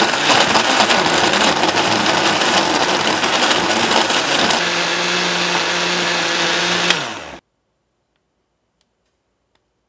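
Countertop blender running with chunks of orange chicken in a vanilla milkshake: a rough, uneven churning for about four and a half seconds that turns into a smooth steady hum once the contents are blended. About seven seconds in there is a click and the motor spins down, then near silence.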